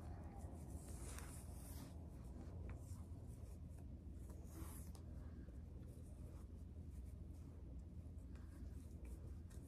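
Faint rustling of braiding hair as it is twisted and braided by hand into natural hair, with soft swishes about a second in and again midway, over a low steady hum.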